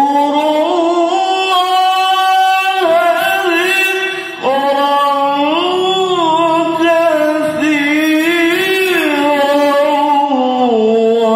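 A man reciting the Qur'an in the melodic tilawah style: long, ornamented held phrases with winding slides in pitch, broken by a brief breath about four and a half seconds in.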